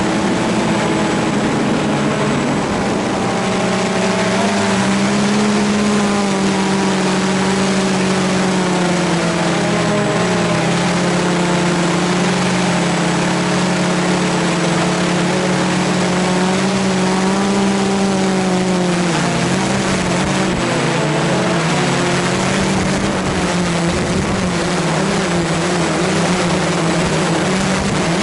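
Walkera quadcopter's electric motors and propellers buzzing right by the onboard camera, a steady drone whose pitch wavers up and down as the motors adjust speed. Wind buffeting on the microphone grows over the last third.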